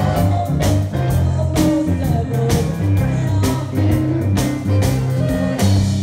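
A live blues band playing guitar, bass and drums on a steady beat, with a woman singing.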